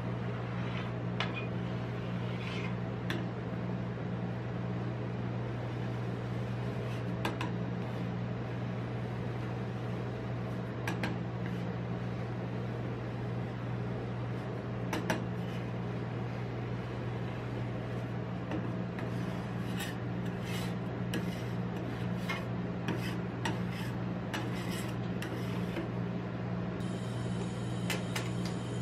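Metal spatula scraping across a steel ice-cream cold plate as frozen orange ice cream is pushed up into rolls, with scattered clicks and taps of the blade on the metal that come thicker in the second half. A steady low hum runs underneath.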